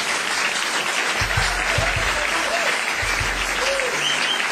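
A packed club audience applauding, with scattered whoops rising and falling above the clapping.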